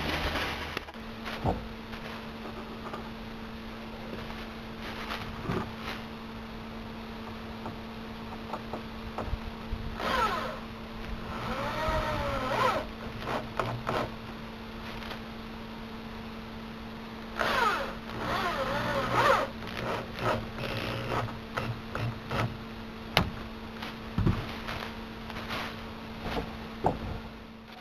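Corded electric drill driving coated deck screws into treated-wood pickets: two runs of a couple of seconds each, the motor pitch rising and falling, with scattered knocks and clicks of the wood and tool handling over a steady low hum.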